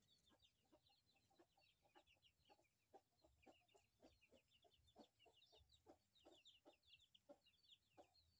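Faint clucking of chickens: short low notes repeated irregularly, a few each second, with many quick high chirps over them.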